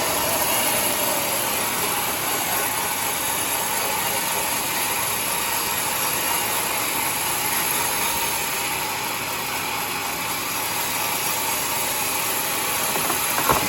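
Homemade band sawmill running, a steady mechanical din, with a brief knock near the end.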